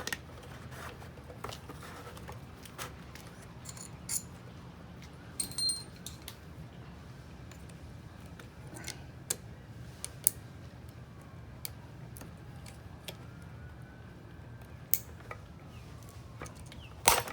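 A steel chisel prying out the wrist pin seal of a Detroit Diesel 8V53 piston: scattered metallic clicks and scrapes, a brief metallic ring about five seconds in, and a loud clack near the end. A steady low hum runs underneath.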